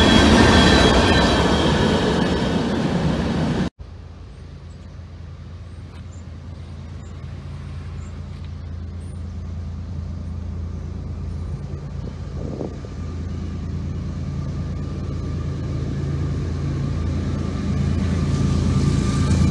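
Freight train cars rolling past at close range, wheels on rail, cut off abruptly about four seconds in. Then the low hum of Norfolk Southern diesel locomotives approaching from a distance, growing steadily louder.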